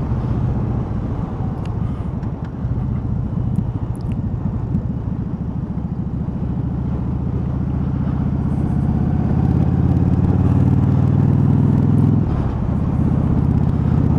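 Yamaha Drag Star 1100's V-twin engine running under way, heard from the rider's seat. The engine note builds steadily from about halfway through, eases briefly near the end, then picks up again.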